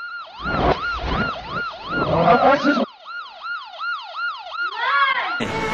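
Police siren sounding in a fast, repeating up-and-down sweep, about three cycles a second. A fuller background under it drops out abruptly about three seconds in, and near the end the sound cuts suddenly to something else.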